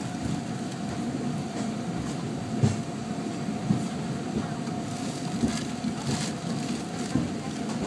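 Peak Tram funicular car running downhill, heard from inside the car. A steady rumble of the wheels on the track carries a steady hum, with a few short knocks and rattles; the loudest knock comes about two and a half seconds in.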